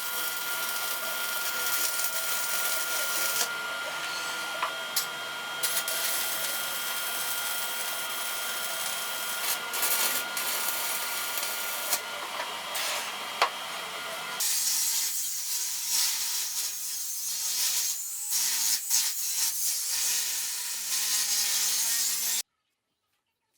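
Power tools working steel, heard in two separate takes: first a steady machine noise with a constant motor whine, then, after an abrupt change about two-thirds of the way in, a rougher, hissier grinding sound with a wavering hum that stops dead near the end.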